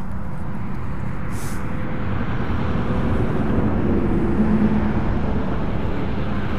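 Steady low wind rumble on the microphone, with a faint distant engine drone that swells around the middle and a brief hiss about a second and a half in.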